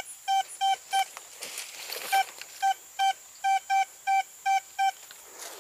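Vista Gold metal detector beeping as its coil is swept over the ground: a run of short, identical beeps at one mid pitch, about three a second, with a brief pause about a second in, stopping near the end. The repeated beeps are the detector's signal for metal beneath the coil.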